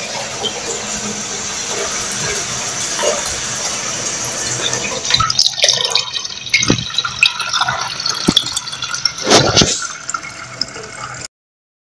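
Buttermilk poured from a steel mug into a plastic bottle, a steady stream of liquid filling the bottle. Several short knocks come in the second half, and the sound cuts off abruptly near the end.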